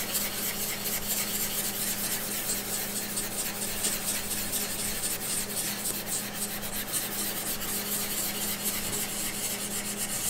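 400-grit abrasive paper wet-abrading an aluminium beam surface in small circles with Conditioner A: a continuous fast, scratchy rubbing of many quick strokes, easing off near the end. This is the wet-abrasion step of surface preparation for bonding a strain gauge.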